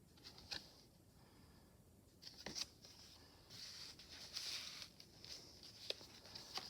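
Faint rustling and light ticks of paper being handled as the pages and tucked cards of a handmade paper journal are turned over.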